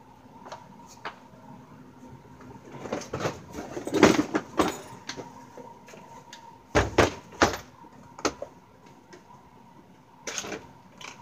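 Knocks and clatter of a plastic parts-organizer case being handled and set down on a wooden workbench. There are scattered clicks, a loud cluster of knocks about four seconds in, and three sharp thumps around seven seconds.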